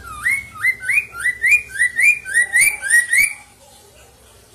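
Poksay mandarin laughingthrush singing a loud series of about eleven quick rising notes, about three a second, which stop abruptly about three and a half seconds in.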